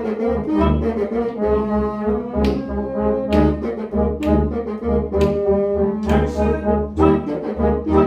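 Bassoon, tuba and trombone trio playing a lively piece at forte, the tuba pulsing in the bass under trombone and bassoon. Sharp accented attacks come roughly once a second, the players leaning on the downbeats.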